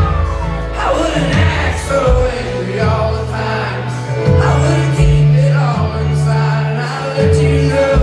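Live country band playing a slow song: acoustic guitar, bass, keyboard, drums, fiddle and steel guitar, with a gliding lead melody line over sustained low notes.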